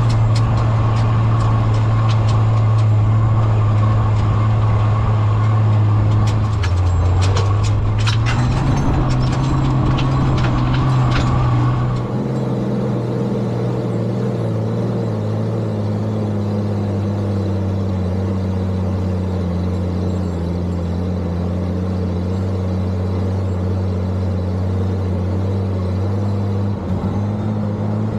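Vintage Dodge M37 wrecker's propane-fuelled engine running steadily under load as it drives through sand. Its pitch dips and climbs again about seven to nine seconds in, with a few sharp rattling clanks. From about twelve seconds in it is heard from outside the cab, with less low wind rumble.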